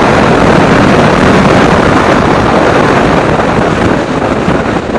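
Heavy wind noise buffeting an external microphone on a moving motorcycle, a loud steady rush that a furry dead-cat windscreen is not stopping; it eases slightly near the end.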